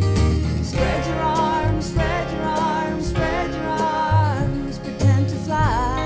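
A live band playing a slow song on acoustic guitar, electric guitar, bass and drums. About a second in, a woman's sung vocal line enters, held and wavering in pitch.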